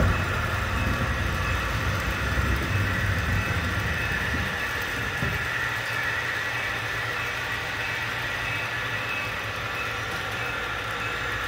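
HO-scale model trains running on the layout's track: a steady whine from the locomotive motors over a low rumble of wheels on rail, the rumble fading about halfway through.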